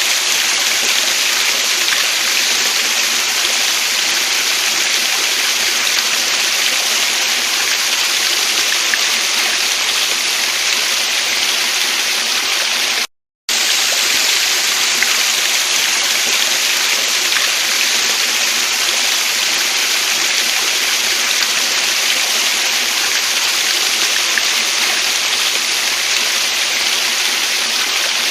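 Waterfall and stream water rushing in a steady, even hiss. It cuts to silence for a split second about halfway through, then resumes unchanged.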